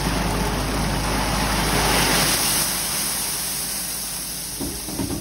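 Crushed stone pouring down into the water-filled deep end of a pool, a steady rushing and splashing hiss, with the engine of the tracked machine dumping it running underneath. The pour is loudest about two seconds in; then the engine hum drops away and the rush slowly tapers off.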